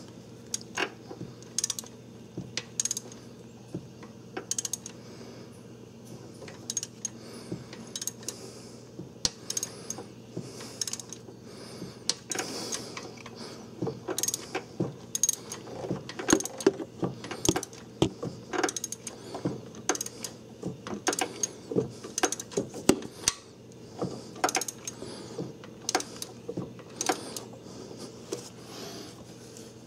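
Hand ratchet clicking in irregular runs and pauses as it turns a seal installer tool, pressing a new camshaft seal into its bore. A steady low hum runs underneath.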